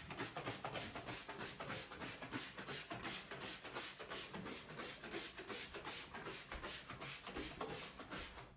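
A cloth wiping the outside of a refrigerator in quick, even back-and-forth strokes.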